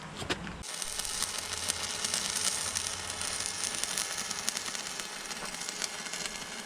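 Electric arc welding on a steel frame: a steady, dense crackling sizzle of the arc that strikes up sharply less than a second in.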